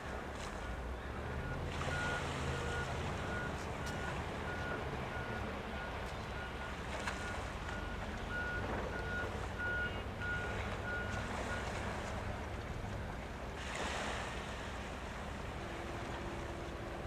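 Low, steady engine drone from harbour work boats under wind and surf noise, with wind buffeting the microphone. A series of short high beeps, like a warning beeper, sounds repeatedly through the first two-thirds.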